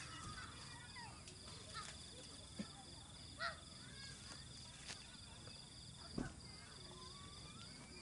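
Insects chirring steadily in the night, with a few light knocks and clatters as a metal folding frame is handled and loaded into the back of a car.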